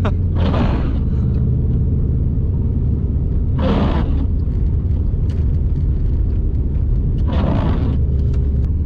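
Subaru WRX STI's turbocharged flat-four engine and tyres on a snowy road, droning steadily as heard inside the cabin while driving. Three brief hissing swishes come about three and a half seconds apart.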